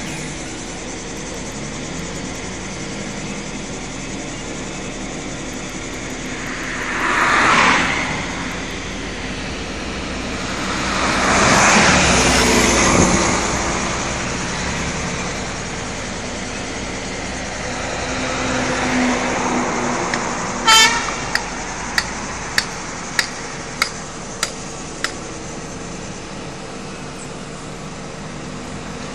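Road traffic passing close by, two vehicles swelling up and fading away, over a steady running truck engine. About two-thirds in there is a short horn toot, followed by a series of sharp knocks about one and a half a second.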